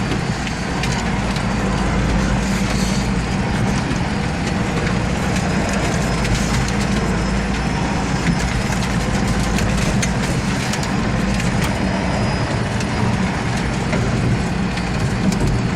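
An off-road vehicle's engine runs steadily under load as it forces its way through dense brush. Branches crackle and snap against the vehicle throughout.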